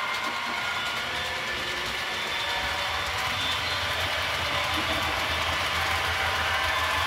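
H0-scale model train running along the layout: the steady whir of the locomotive's motor and its wheels rolling on the track, slowly getting louder.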